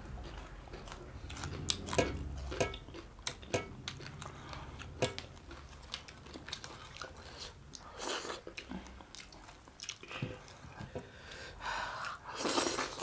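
Close-up eating sounds: chewing and crisp bites into small fried fish, with frequent short crunches and a louder burst of mouth noise near the end.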